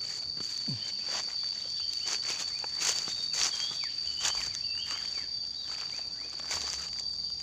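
Footsteps crunching irregularly on dry leaf litter and stones along a forest path, over a steady high-pitched insect drone.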